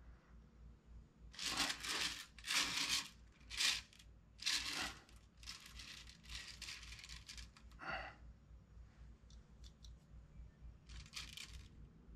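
Bursts of scraping and rustling from hands working and adjusting an oil-based clay (Plasticine) sculpture, with a short squeak about eight seconds in.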